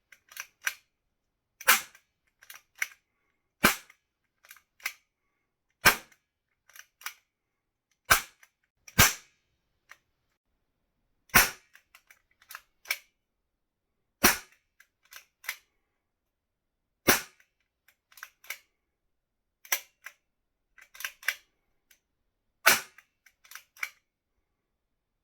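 Coibel die-cast Browning Commander cap pistol firing its 12-shot cap tray: about ten sharp cracks, one every two to three seconds. Between shots come quieter clicks as the slide is racked by hand to bring up the next cap.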